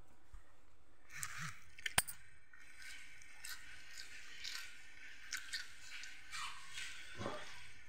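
Chewing a fried battered eggplant fritter close to the mouth: irregular soft crunches and mouth sounds, with one sharp click about two seconds in.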